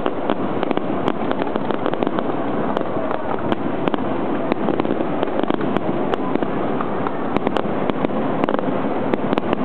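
Aerial firework shells bursting overhead: a dense, continuous crackling with many sharp pops and bangs.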